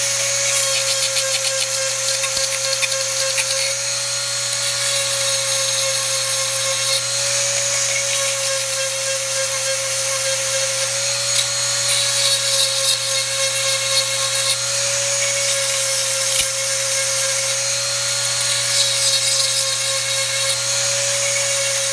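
Dremel rotary tool with a small grinding stone running at a steady high whine while it grinds the cutter teeth of a chainsaw chain, the grinding on the metal varying over the whine. It is sharpening the underside of each tooth to put a fresh cutting hook on it.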